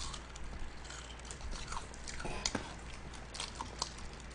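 Honey-glazed fried chicken being bitten and chewed close to the microphone: scattered small crunches and clicks at a low level.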